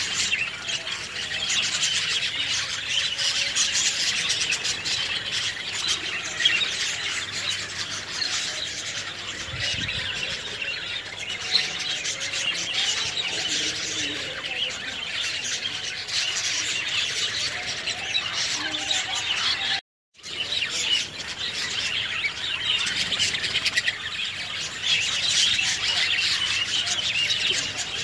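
A mixed roost of cormorants and egrets (herons) calling together in a dense, continuous chatter of many overlapping squawks and chirps. The sound cuts out for a moment about two-thirds of the way through.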